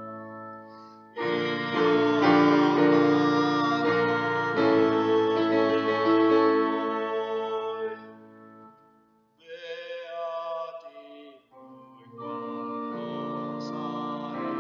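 A man singing a hymn while accompanying himself on a digital piano, with chords held under his voice. The music breaks off briefly about nine seconds in and picks up again near the end.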